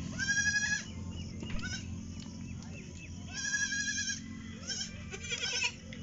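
Young goat kid bleating, a high call repeated several times, the clearest near the start and about three seconds in.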